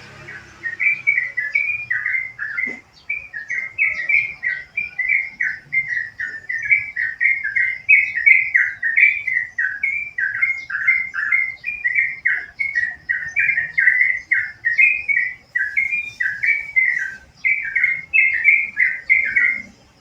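Yellow-vented bulbul (trucukan) singing one long, unbroken run of quick, bubbling notes that slide up and down, about three a second. It starts about half a second in and stops near the end.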